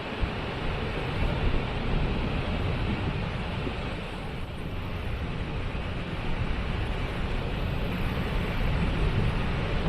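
Waterfall: a steady rush of falling water with a low rumble underneath, swelling a little now and then.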